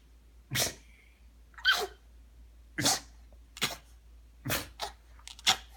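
A pet sneezing over and over, about seven short sharp sneezes roughly a second apart. These are fake sneezes, done on purpose rather than from illness.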